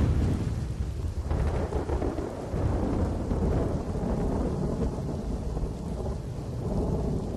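Thunder rumbling over steady heavy rain, starting suddenly and running on as a deep rumble under a hiss of rain.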